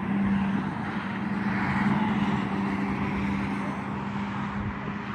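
Road traffic: a motor vehicle running with a steady low hum over tyre and road noise, swelling slightly about two seconds in.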